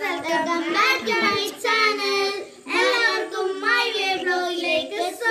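Children singing together, young voices holding notes in short phrases with brief breaks between them.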